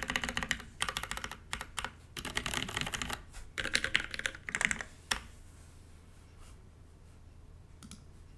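Mechanical keyboard being typed on: a UTC 360c with lubed, filmed Cherry MX Black linear switches, GMK keycaps and an aluminium top-mounted plate, a fast run of key presses and key bottoming-out. The typing stops about five seconds in, leaving only a couple of faint key taps.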